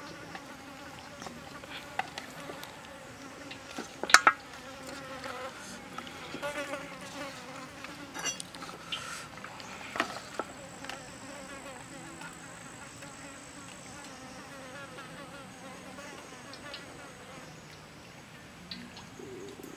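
A fly buzzing near the microphone, its pitch wavering. It is joined by scattered clicks from handling bamboo skewers against a metal tray, with a sharp knock about four seconds in.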